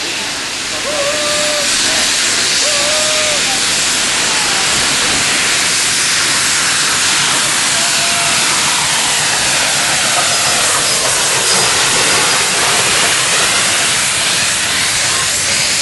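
Steam locomotives on the move heard from a carriage window: a loud, steady hiss of steam and running noise, with a few short high squeals in the first few seconds and again about eight seconds in.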